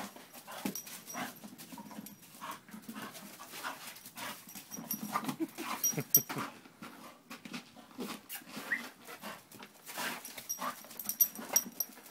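A bull terrier cross worrying a ball on slushy paving: dog noises and breathing, mixed with irregular scrapes and knocks of its paws and the ball on the ground.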